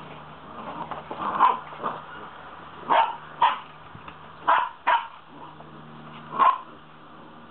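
Vizsla puppies barking in play: about six short, sharp barks, several coming in quick pairs.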